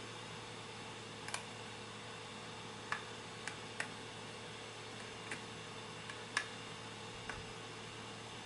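Small, sharp, irregular clicks from a lock pick working the pin stack of a custom-pinned Chris Ahrens lock held under tension, about eight over several seconds. The clicks are pins being lifted and setting or oversetting.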